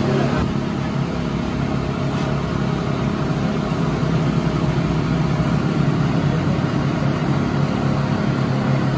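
A steady low mechanical hum that holds an even level without pausing.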